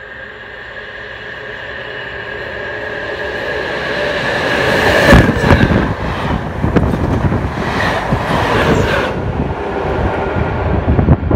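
Test train hauled by Class 73/9 electro-diesel locomotives approaching and passing at speed. A steady tone grows louder over the first five seconds, the pass is loudest about five seconds in, and a dense clatter of wheels on rails follows, with a second loud surge around eight to nine seconds.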